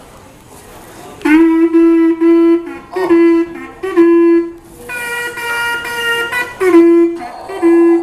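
Conch shell trumpet blown in a string of short blasts, most on one low note, with one higher note held for about a second in the middle, like a tune being tooted.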